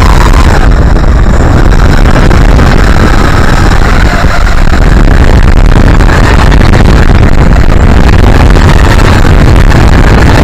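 Heavy wind buffeting on the onboard camera's microphone of a small multi-propeller RC plane in low flight, with the spinning propellers' drone mixed in; very loud and steady, with a brief dip about four seconds in.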